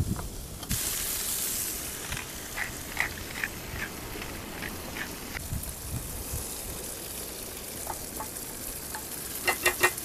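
Diced peppers and tomatoes sizzling in a skillet on a portable gas camping stove while they are stirred. The sizzle jumps up sharply under a second in, with scattered light clicks of the utensil against the pan and a quick run of clicks near the end.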